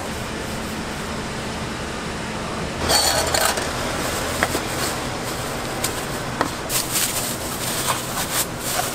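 Plastic bags rustling and crinkling as they are pulled from a stack and pushed into a container: a loud burst about three seconds in, then scattered crinkles near the end, with a few light clicks between. A steady low hum runs underneath.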